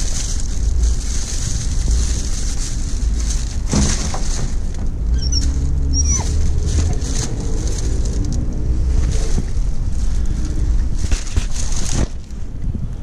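Wind buffeting the microphone as a low, uneven rumble, under a steady high hiss that stops abruptly about twelve seconds in.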